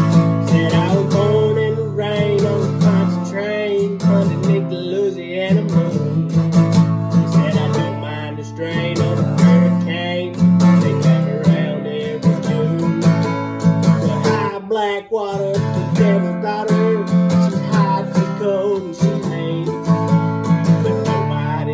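Country song with strummed acoustic guitar, an instrumental stretch without sung words.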